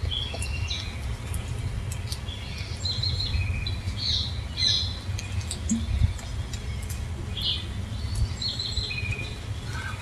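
Wild birds chirping and calling in short phrases throughout, over a steady low rumble.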